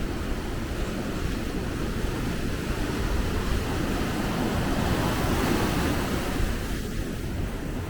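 Sea waves surging and washing onto a beach in a continuous rush, swelling a little around the middle, with a low rumble of wind on the microphone.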